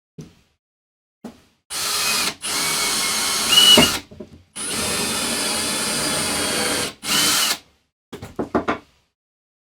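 Power drill running in four stop-start bursts, the longest about two seconds, with a whine that rises sharply at the end of one run. A quick series of sharp clicks follows near the end.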